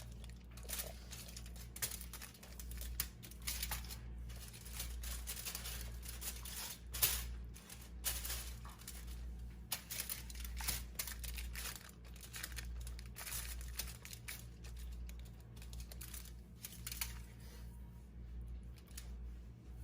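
Aluminium foil crinkling and rustling as it is handled, with irregular crackles that thin out near the end, over a low steady hum.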